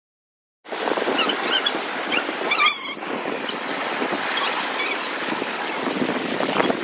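Silence for about half a second, then a sudden start of steady rushing surf and sea water, with a brief high squeaky chirp about three seconds in.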